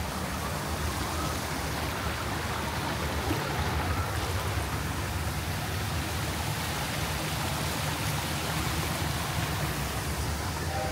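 Steady rushing water over a low, constant rumble.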